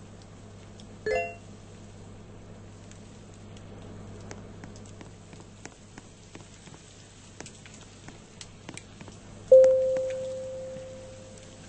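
A brief ringing note about a second in, then near the end a sharp strike that leaves one clear ringing tone fading away over about two seconds, over faint scattered clicks and a low hum.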